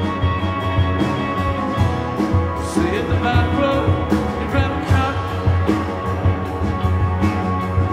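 Live band playing an instrumental stretch on guitar, upright double bass and drum kit. The guitar holds sustained notes, with a wavering, bending line about three to five seconds in, over a bass line and steady drum hits.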